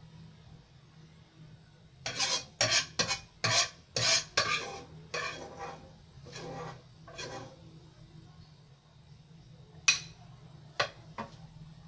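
A metal spoon scraping and knocking against a non-stick frying pan in a quick run of about a dozen strokes, scooping the last of the fried rice into a bowl. Near the end come two sharp clinks.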